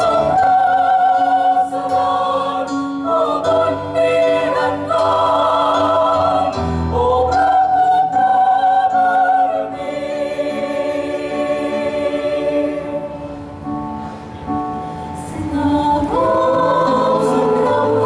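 Mixed choir of men's and women's voices singing sustained chords in parts. It grows softer about ten seconds in and swells back to full voice near the end.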